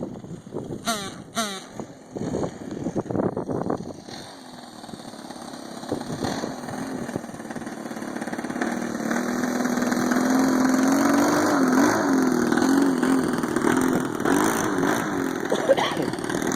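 A propeller aircraft engine drones steadily, growing louder about halfway through, with its pitch wavering up and down. A few sharp clicks come in the first seconds.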